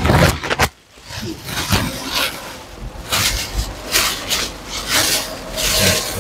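Plastic carrier bags rustling and crinkling in irregular spells as clothes and books are handled and packed back into them.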